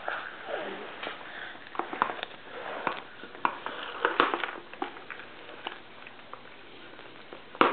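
Scattered light taps and clicks of a plastic sippy cup being handled and knocked against a plastic high-chair tray.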